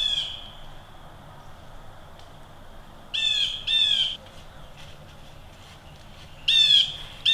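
Crow cawing: one harsh caw at the start, two in quick succession about three seconds in, and two more near the end.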